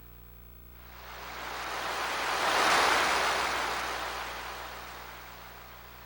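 A sound effect from a TJ Media WOW-7300-2 karaoke machine: one rushing swell of noise like a breaking wave, building for about two seconds and then fading away over the next few seconds.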